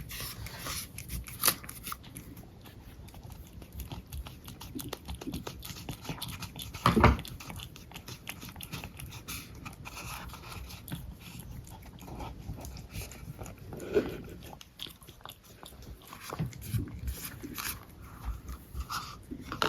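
A pet cat making its funny noises while being brushed, over the scratchy rasp of the brush strokes through its fur. The loudest noise comes about seven seconds in, with another short one near fourteen seconds.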